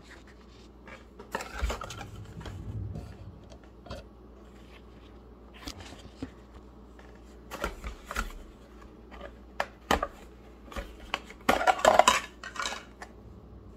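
Handling noise from the plastic carrying case of a portable mini gas stove as it is picked up and opened: scattered clicks and knocks, with a louder spell of rattling near the end.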